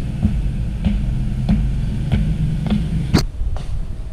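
Footsteps at a steady walking pace, a little under two a second, with a sharper step or knock near the end, over a steady low hum.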